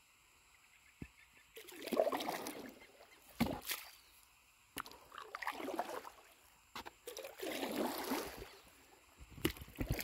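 Stand-up paddle blade pulling through calm river water: three sloshing swishes, each about a second and a half long, with a few short knocks between them. A low rumble comes in near the end.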